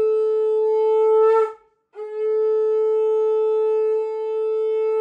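Conch shell (shankha) blown in two long, steady blasts on a single note. The first breaks off about a second and a half in, and after a brief pause for breath the second starts about two seconds in.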